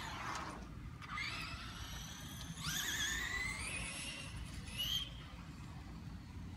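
Traxxas Rustler VXL RC truck's brushless electric motor whining through its gearing as it is throttled in bursts: a falling whine at the start, a short rising whine about a second in, then a longer rising whine with a wavering pitch that cuts off about five seconds in.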